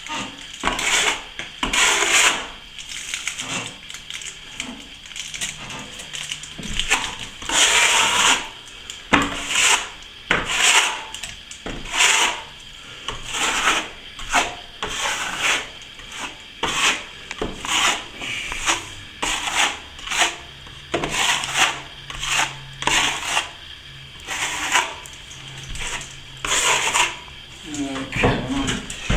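Steel plastering trowel scraping over a fresh finish coat of plaster in repeated strokes, roughly one a second: polishing the plaster as it firms up, before it sets.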